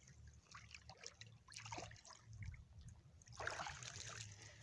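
Faint water trickling and dripping with small handling rustles as a drowned river otter is pulled from the water off a trap. The dripping and splashing grows denser in the last second or so as the wet body comes up out of the water.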